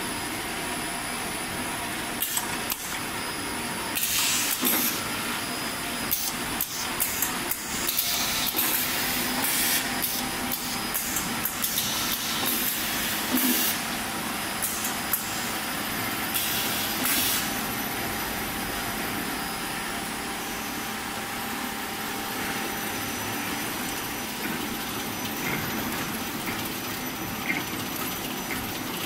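Automatic chocolate bar packing line running: conveyors and flow-wrapping machine making a steady machine hum with scattered clicks. Several bursts of hiss, each about a second long, come and go in the first half.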